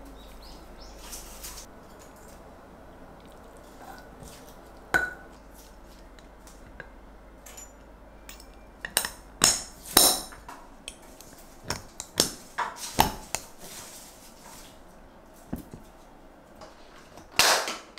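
Utensil and glass clinking as grated carrot salad is packed into a small glass Weck jar: scattered sharp clinks, one about five seconds in, a busy run between about nine and thirteen seconds in, and a louder pair near the end.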